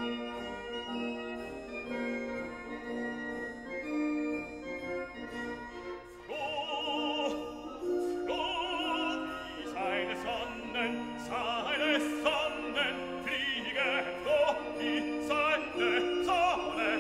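Classical music: held chords for about six seconds, then an operatic voice with a wide vibrato comes in and sings over the accompaniment.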